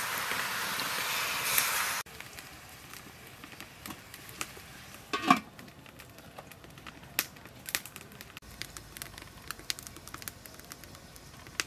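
Coconut juice pouring and splashing into a wok of raw shrimp for about two seconds, then it cuts off sharply. After that a wood fire burns in a stove, crackling with scattered sharp pops, and a single louder knock comes about five seconds in.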